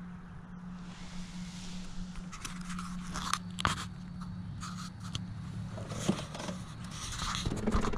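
Scrapes, clicks and knocks of the camera being handled and turned around on an aluminium boat, busier near the end, over a steady low hum.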